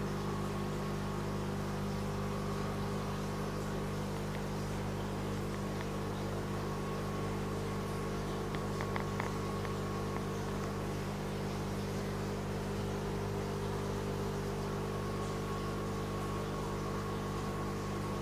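Steady hum of aquarium equipment, an air pump driving the bubble curtains, with a soft hiss of bubbling water. A few faint clicks sound about nine seconds in.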